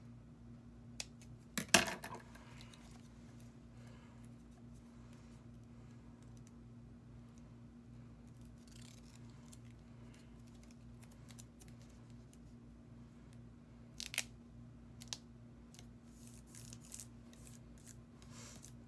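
Scissors snipping paper, with one sharp snip just under two seconds in, then light clicks and crinkles of paper pieces being handled and pressed down onto a scrapbook page.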